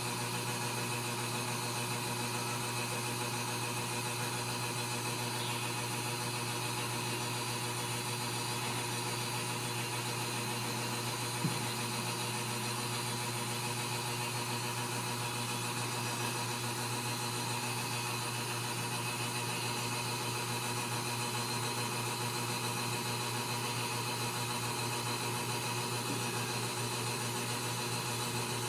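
A steady, unchanging low hum with a mechanical quality, and one faint click about eleven seconds in.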